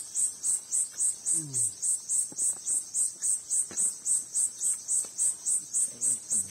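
An insect chirping steadily in a high-pitched pulse, about four chirps a second, without a break.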